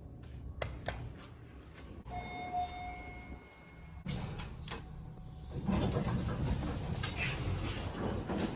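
Schindler passenger elevator: a few sharp clicks, a held chime tone about two seconds in, then more clicks and the doors sliding with a low mechanical rumble through the second half.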